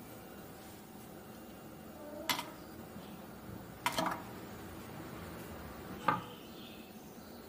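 A few light taps and clinks of ingredients and handling against a stainless-steel mixer-grinder jar: three short, sharp knocks about two, four and six seconds in.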